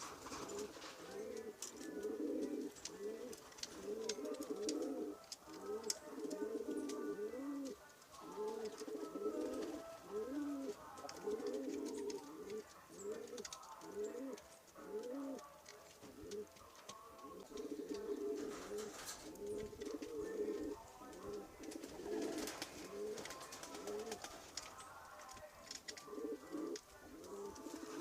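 Several domestic pigeons cooing, repeated rising-and-falling coos overlapping one another.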